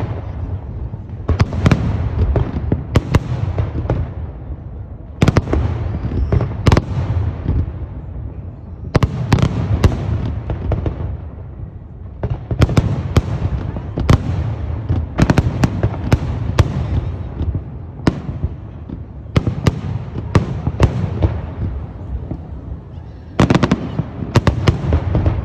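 Aerial fireworks exploding in quick clusters of sharp bangs, each followed by a low rumble and echo, with a new volley every second or two.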